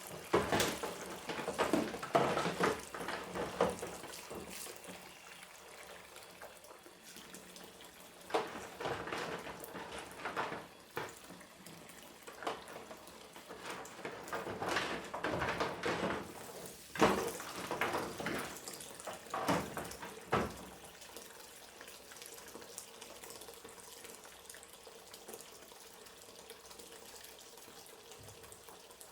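Dishes being washed by hand in a sink under a running tap: splashing water with sharp clinks of dishware, coming in irregular bursts. Over the last third only the quieter running water remains.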